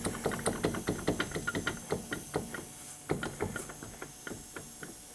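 Chevrolet Cavalier front wheel being rocked by hand, its hub clunking and clicking in rapid, irregular knocks. This is play in the wheel hub, which the owner blames on a newly replaced wheel bearing that has already failed.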